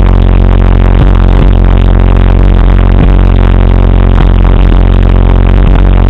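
Bass-heavy electronic music played very loud through a car stereo's subwoofers, with a deep, steady bass and the level pinned near maximum.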